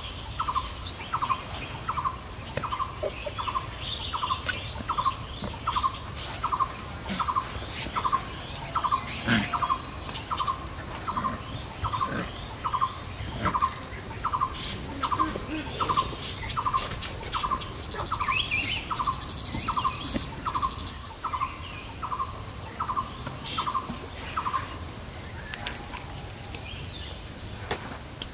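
A bird repeating a short call note at an even pace, a little more than once a second, stopping about 25 seconds in. Under it runs a steady high insect drone, with other birds chirping.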